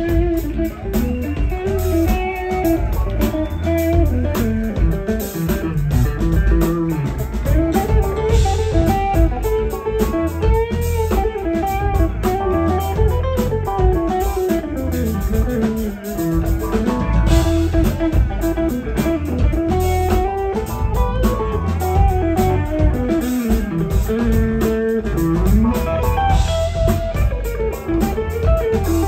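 Live funk band music led by an electric guitar solo on a Stratocaster-style guitar, with single-note lines that bend and slide in pitch over a steady bass and drum groove.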